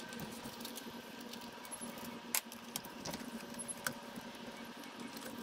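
A few sharp metallic clicks and clinks of a screwdriver and small carburetor parts being handled on a workbench, the loudest about two and a half seconds in, over a faint steady hum.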